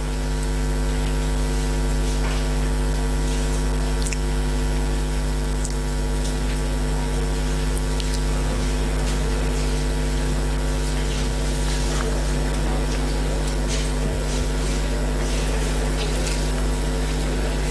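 Steady electrical mains hum, a low buzz with a haze of hiss behind it, and a few faint ticks.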